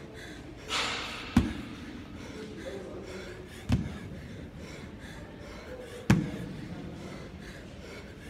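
A dumbbell knocking on the gym floor three times, about two and a half seconds apart, as its head touches down at the bottom of each rep of dumbbell snatches.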